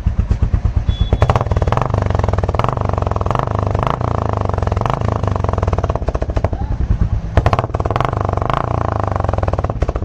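Royal Enfield Classic 350 Reborn's single-cylinder engine running through its stock silencer with a free-flow C-bend pipe and no catalytic converter. It thumps at idle, is held at higher revs for several seconds, drops back to idle thumps briefly, and is raised and held again near the end.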